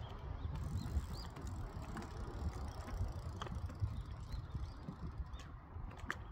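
BMX bike's freewheel hub ticking as the rider coasts, with the bike's rattle over a steady low rumble. A few faint short high chirps come and go.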